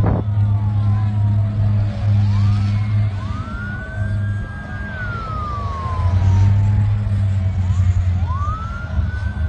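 Emergency vehicle sirens wailing in slow cycles, each rising, holding, then falling, over a steady low engine drone, with one sharp crack at the very start.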